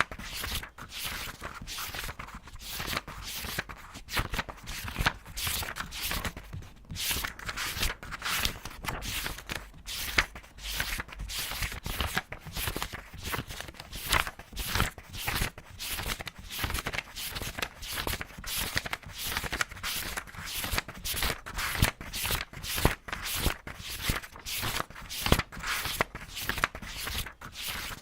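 Paper pages being turned fast, one after another: a steady run of quick papery swishes and flicks, about two to three a second.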